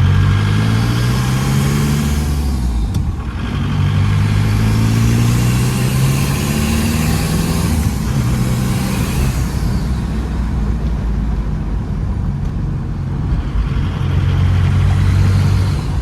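Volkswagen TDI turbo-diesel engine accelerating through the gears under load. Its note climbs, drops at a gear change about three seconds in, climbs again until easing off near ten seconds, holds steadier, then climbs once more near the end.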